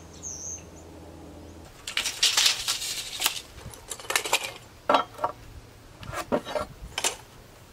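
Handling of framing lumber and tools on sawhorses: a burst of clattering about two seconds in, then a few separate sharp clinks and knocks.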